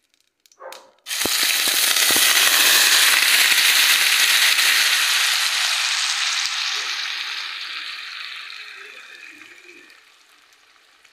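Drained, still-wet spaghetti dropped into hot melted butter in a pot, sizzling loudly as the water hits the fat. The sizzle starts suddenly about a second in with a few knocks of the pasta landing, then slowly dies away.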